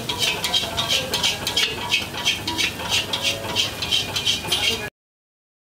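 A metal spatula scraping and clinking in a wok while mixed vegetables are stir-fried, about three quick strokes a second. It cuts off suddenly near the end.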